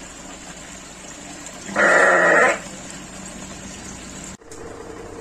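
A small livestock animal trapped at the bottom of a manhole bleats once, a single call under a second long about two seconds in.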